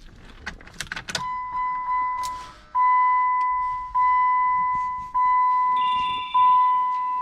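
A few clicks and rattles like keys, then the Jeep Compass's electronic warning chime dinging steadily about once every 1.2 seconds, each ding a clear tone that fades before the next.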